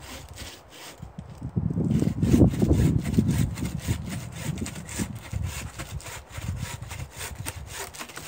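Hand saw cutting through wood in a quick run of back-and-forth strokes, about three a second, loudest a couple of seconds in.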